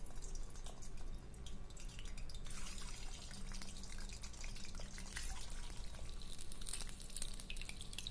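Peeled boiled eggs frying in shallow hot oil in a kadai on high flame: a steady sizzle with many small pops and crackles of spattering oil, the crackling growing busier in the second half.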